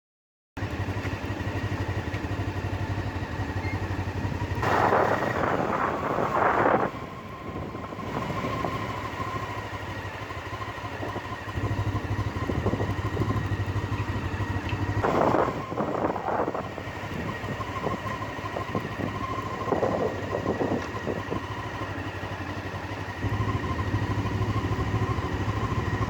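Motorcycle engine running during a test ride, with a few brief rushes of noise. The test is of the front brake just after its pads were greased with anti-squeal paste, and no loud brake squeal stands out.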